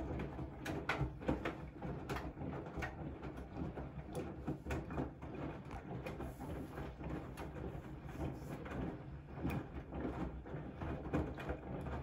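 Siemens iQ300 front-loading washing machine in its wash cycle: the drum turning with a steady low hum, wet laundry and water tumbling inside with irregular soft knocks and splashes.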